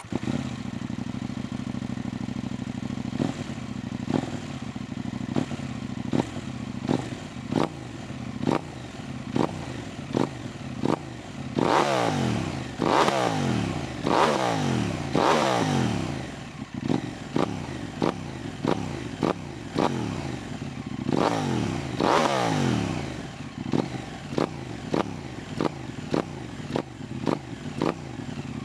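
KTM 890 Duke R parallel-twin motorcycle engine idling while the throttle is blipped, short sharp revs about once a second. There are several harder revs around the middle, each falling back to idle.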